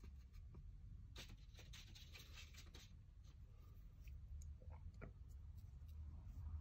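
Very faint scratching and a few light ticks of a pen drawing on paper, over a steady low hum.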